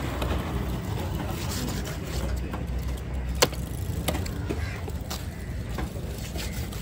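Steady low hum of passing traffic, with one sharp knock about three and a half seconds in and a few lighter knocks after it, as a cleaver strikes a large fish on a wooden chopping block.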